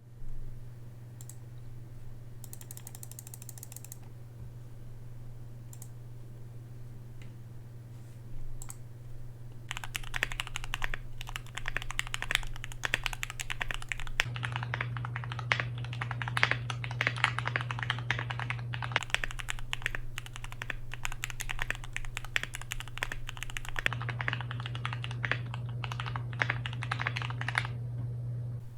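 Typing on a gasket-mounted Tofu60 mechanical keyboard with lubed Gateron Milky Yellow linear switches, an aluminium plate, foam and tape mods, and HK Gaming 9009 keycaps. It opens with a few separate keypresses, then turns into fast continuous typing about ten seconds in. A steady low hum runs underneath.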